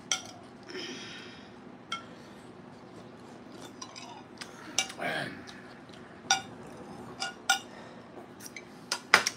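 Scattered clinks and taps of forks on plates and a glass bowl as two people eat, with a short hiss about a second in and a brief voiced murmur around five seconds.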